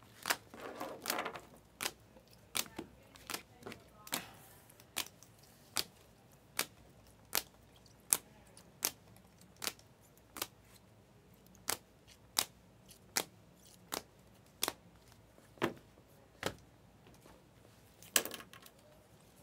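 Trading cards in clear plastic holders being flipped one at a time off a stack in the hand, each card giving a sharp plastic click, about one every three-quarters of a second, with some brief rustling near the start.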